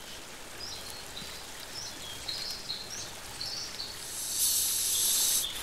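A bird calling in short high notes, repeated about every half second. Near the end a loud burst of hissing noise lasts about a second.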